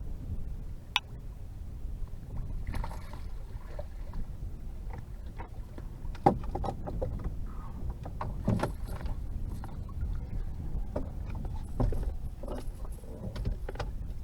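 Knocks, clicks and thumps of gear being handled in a small fishing boat, over a steady low rumble of wind and water, with a few brief swishes.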